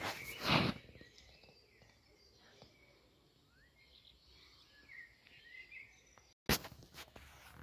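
Outdoor ambience with faint bird chirps. A brief loud rush of noise comes about half a second in, and near the end the sound drops out for an instant and comes back with a sharp click.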